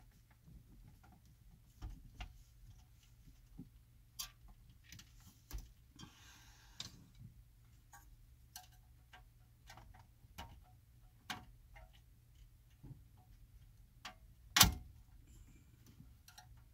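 Scattered light clicks and knocks of a factory car stereo's metal casing and plastic wiring plugs being handled, with a short rustle about six seconds in and one loud sharp knock about two seconds before the end.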